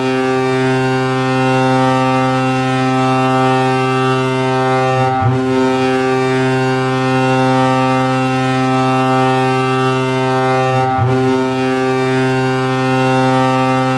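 Colorado Avalanche arena goal horn sounding three long, steady blasts of about five seconds each, separated by brief breaks.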